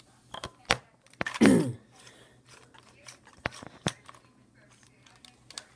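Scattered sharp clicks and light knocks from handling a light bulb and lamp during a bulb swap, with a brief voiced sound about a second and a half in.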